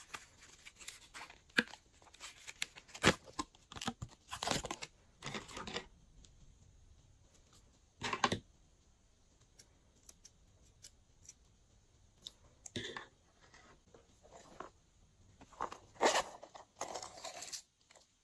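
Glossy slime being worked and stretched by hand, giving sticky crackles and clicking pops in irregular bursts with short pauses between.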